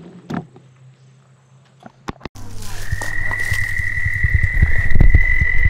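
Faint outdoor sound with a few soft knocks, then two sharp clicks and a loud channel-intro sound: a steady high tone held over a low, irregularly throbbing rumble.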